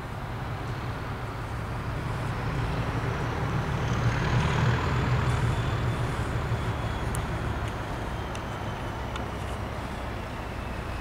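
Class 37 diesel locomotive's English Electric V12 engine approaching under power: a low rumble that builds to its loudest about four to five seconds in and then eases, with a high whine slowly falling in pitch above it.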